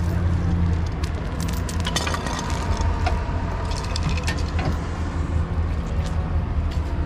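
A vehicle engine running steadily, with many short, sharp clinks and clicks scattered over it.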